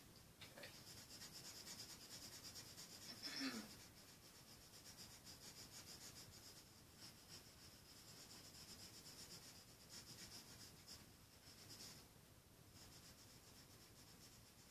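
Faint scratching of a coloured pencil shading on drawing paper, in quick, even strokes. A short murmur from a man's voice comes about three and a half seconds in.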